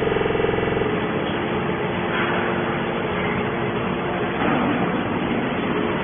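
Hydraulic scrap metal baler running, a steady machine sound. A pitched hum in the first second gives way to an even, noisy rumble.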